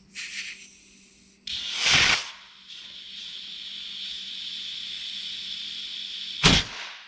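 Compressed air hissing from an air chuck pressed into a port of a resealed power steering box under an air leak test: a few short hisses, a loud burst about two seconds in, then a steady hiss of air escaping at the chuck. Near the end a sudden loud blast as the pressure is let out of the box.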